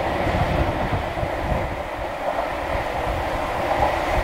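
Tobu 634-series "SkyTree Train" electric train pulling away through a tunnel: a steady rumble of wheels on rail, echoing off the tunnel walls.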